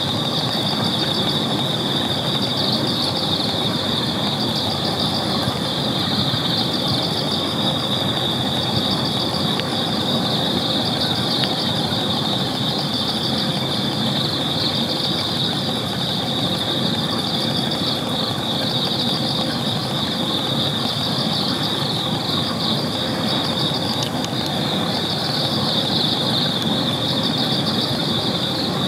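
Steady, high-pitched chorus of night insects, a continuous pulsing trill, over a constant low background rumble.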